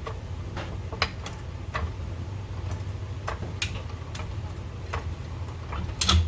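A jack being pumped to raise the transmission, giving irregular light clicks about every half second to second, with a sharper knock near the end, over a steady low hum.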